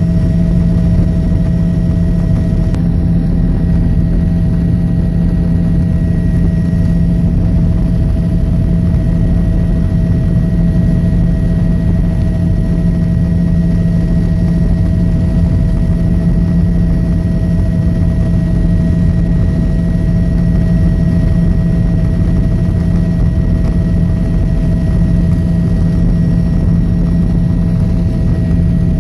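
Helicopter in flight heard from inside the cabin: a loud, steady drone of engine and rotors with a constant low hum and a fainter higher tone over it.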